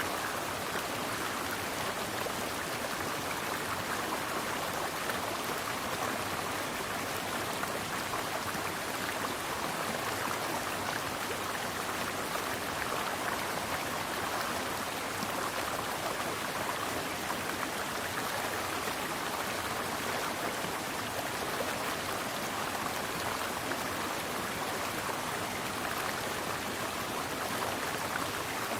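Mountain stream flowing: a steady, even rush and splash of water that does not change.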